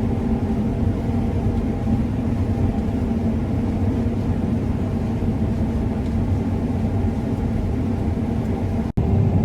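Heavy diesel farm-machine engine running steadily: a low, even drone with a constant hum. The sound cuts out for an instant near the end.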